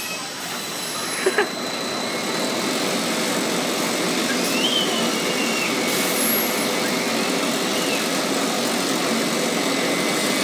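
Steel roller coaster train running along its track into the station, a steady rolling noise that builds over the first few seconds and then holds, with two short clicks about a second and a half in.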